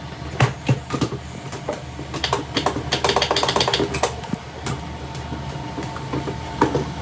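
Water-soaked electric alarm clock plugged into mains power, giving a steady electrical hum with scattered clicks and a denser patch of crackling in the middle; it is still wet inside and not working properly.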